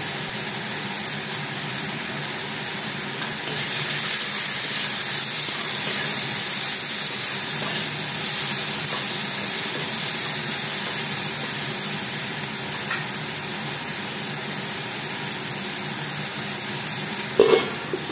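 Chopped tomato and onion with turmeric and salt sizzling in oil in a wok, stirred with a spatula; the sizzle grows louder a few seconds in. Near the end a metal lid is set down on the wok with a short clank.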